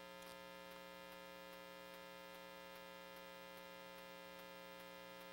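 Near silence on the race feed: only a faint, steady electrical mains hum with a buzz of many even tones, and faint high ticks about four times a second.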